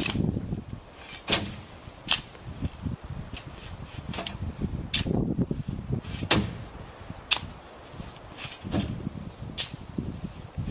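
Sand being shovelled by hand into a steel tipping wagon on a narrow-gauge field railway: a steel shovel scraping into the sand pile and sand tipped into the wagon. It goes as a sharp scrape or knock about once a second, over a low gritty rustle.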